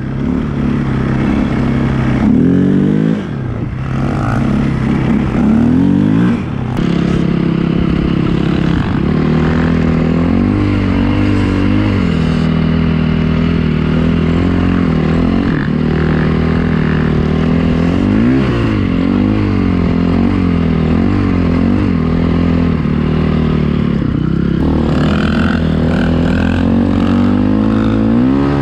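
Dirt bike engine running under throttle, its pitch rising and falling again and again as it speeds up and eases off.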